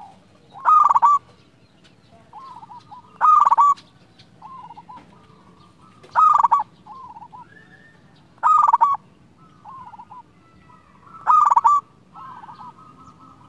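Zebra dove (perkutut) cooing: five loud, clear calls about every two and a half to three seconds, each trailed by a run of softer coo notes.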